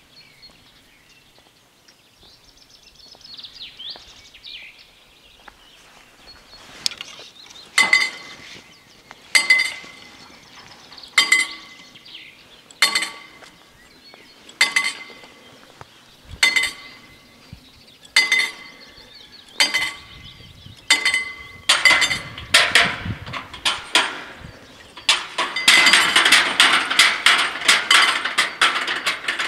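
Level crossing warning bell striking at a slow, even pace of about one ring every second and a half to two seconds, as the crossing warns and the barriers lower. The strikes come quicker after about twenty seconds and run together into fast continuous ringing near the end. A few bird chirps come before the bell starts.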